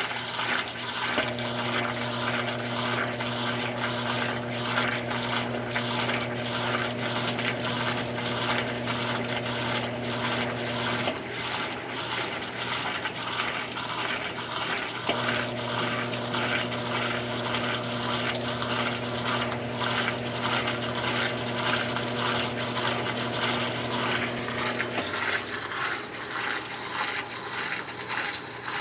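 Consul Maré Super washing machine running, with water rushing and splashing throughout and a motor or pump hum that cuts out about eleven seconds in, starts again about four seconds later, and drops lower near the end.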